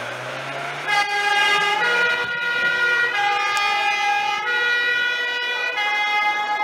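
Fire-service van's two-tone siren, switched on about a second in, alternating between a high and a low note about every second and a quarter. Under it, the van's engine rises in pitch as it pulls away.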